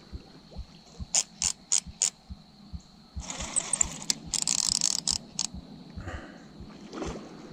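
Fishing reel ratcheting while a hooked carp is played on the line: single sharp clicks, then two stretches of fast clicking in the middle, then a few more clicks.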